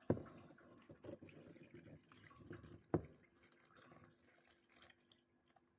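A cup of water poured into a blender jar of chopped fruit and cabbage: faint splashing and dripping, with a sharp knock about three seconds in.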